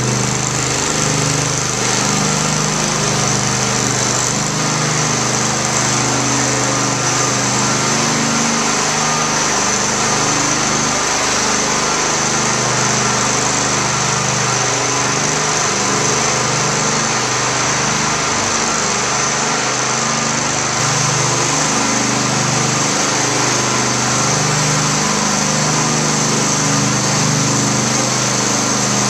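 Propane-powered Phoenix floor burnisher running steadily as its pad buffs a tile floor: the small gas engine's even drone with a steady high hiss above it.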